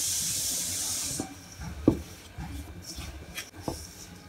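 A hand rubbing ghee into dry flour in a steel bowl: soft rubbing and scraping strokes with a few light clicks. A steady hiss runs under the first second and cuts off suddenly.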